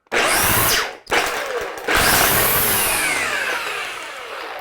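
Black & Decker corded electric string trimmer run in three short bursts, its motor now turning the line head through a new gear and spindle. The last burst winds down slowly, its pitch falling.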